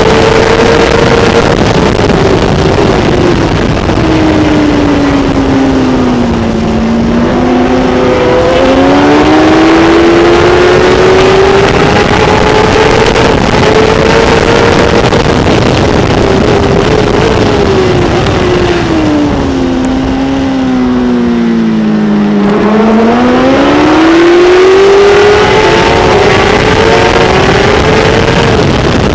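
Kawasaki ZX-10R superbike's inline-four engine at high revs under racing throttle, over a heavy rush of wind noise. Twice the engine note falls steadily as the bike slows for a corner, then climbs back to a high pitch as it accelerates again.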